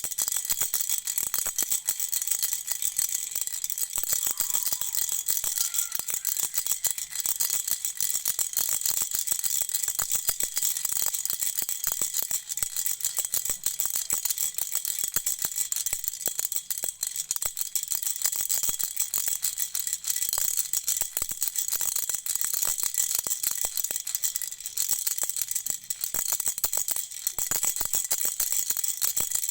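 Toy baby rattle shaken nonstop: a dense stream of small rapid clicks with no pauses, over a faint steady high ringing.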